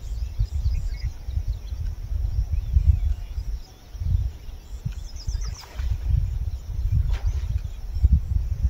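Wind buffeting the microphone as an uneven low rumble, with faint bird chirps over it.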